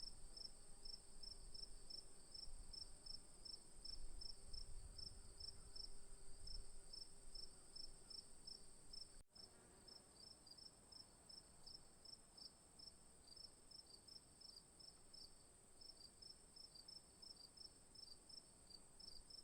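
Crickets chirping: a steady high drone with a regular chirp about three times a second, briefly cut off about nine seconds in, then resuming.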